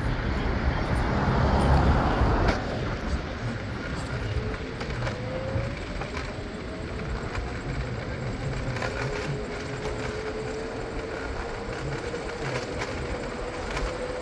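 Riding noise on a city street: wind rushing over the camera, louder for the first couple of seconds, with a faint steady whine that starts about four seconds in and rises slightly in pitch.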